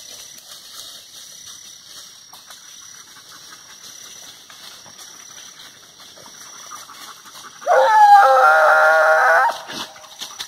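A hunting hound gives one long bay, a drawn-out howl of a little under two seconds, about eight seconds in. Before it there is only faint rustling and crackling in dry leaf litter.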